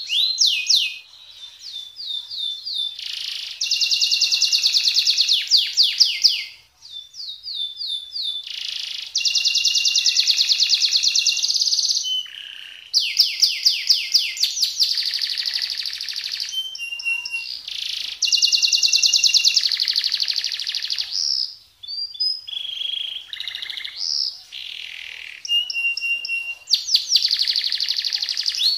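Colour canary singing: phrases of fast rolling trills, each a second or two long, alternating with runs of sharp, separate falling notes, with short pauses between phrases.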